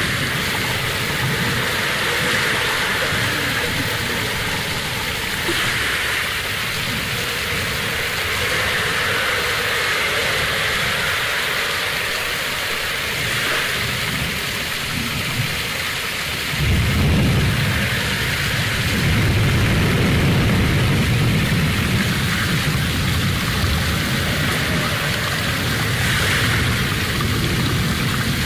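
Water running over rocks in a small forest stream: a steady splashing hiss. A low rumble joins in a little past halfway and stays to the end.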